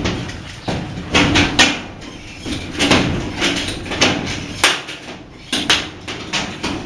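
A run of about a dozen irregular knocks and bangs, some with a short ringing tail, from hands-on work on a house-wiring job.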